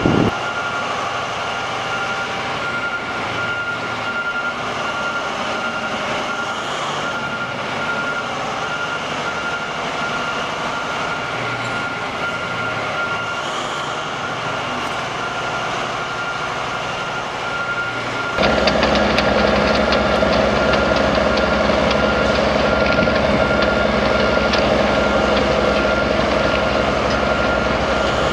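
Liebherr T 284 mining haul truck: a steady high-pitched tone over a low hum, then about 18 seconds in its large diesel engine comes in suddenly, running with a deep, even rumble that is louder than what came before.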